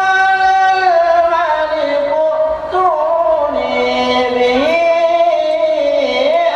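A young man's voice reciting the Qur'an in the melodic tilawah style, one long unbroken phrase of held, ornamented notes. The pitch steps down through the phrase and lifts again about two-thirds of the way in.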